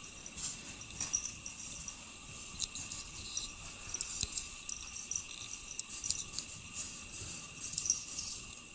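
A cat's claws scraping at a packed wall of snow, heard as short, irregular scratches over a steady high-pitched whine.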